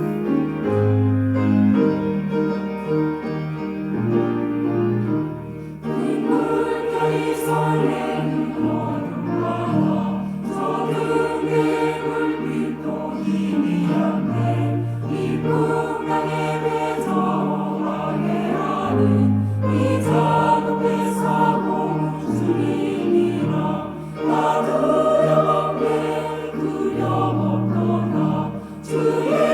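Church choir singing a hymn in parts over instrumental accompaniment. The first six seconds are accompaniment alone; the choir comes in after that and sings on to the end.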